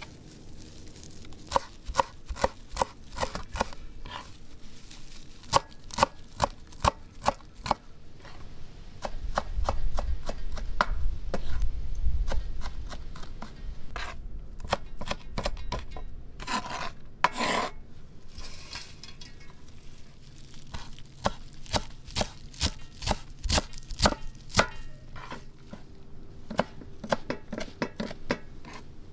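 A kitchen knife chopping a pile of fresh leafy herbs on a wooden cutting board: quick, irregular knocks of the blade on the board. A low rumble is heard for a few seconds about ten seconds in.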